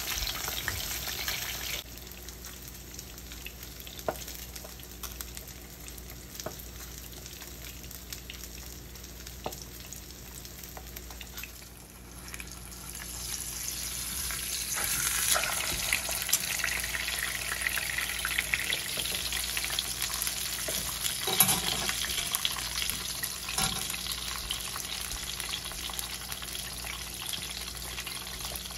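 Salmon fillets sizzling as they pan-fry in oil in a nonstick skillet, the sizzle getting louder about halfway through, with a few sharp clicks of a spatula against the pan as a fillet is turned.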